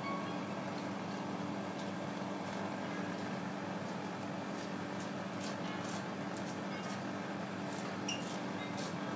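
Steady low hum of kitchen machinery, with a few faint short clicks and scrapes from a knife trimming a large pike conger fillet on a wooden cutting board.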